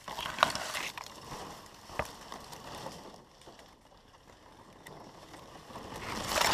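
Palm fronds brushing and scraping against a head-mounted camera and gear, with footsteps on dry leaf litter and a few sharp clicks. The rustling builds to its loudest near the end as a frond sweeps across the camera.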